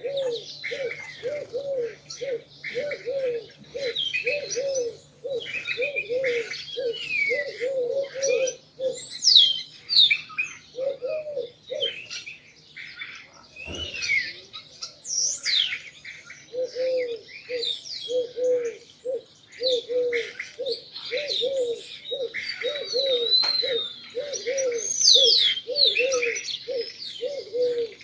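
Pigeons cooing in a steady run of low notes about two a second, with a break near the middle, over many small birds chirping and whistling. A brief low thump comes about halfway.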